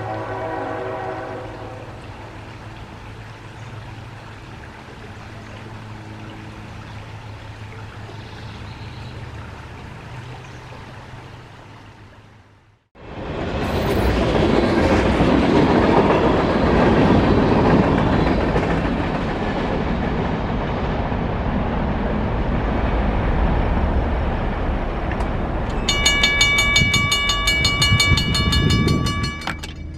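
A distant Norfolk Southern locomotive horn sounds and fades, leaving a faint far-off rumble. After a cut, a train passes a grade crossing with a loud rumble and rail clatter. Then a mechanical crossing bell rings rapidly and clearly in the last few seconds.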